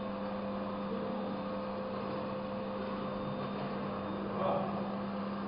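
A steady low hum over a constant hiss of background noise, with a faint brief sound about four and a half seconds in.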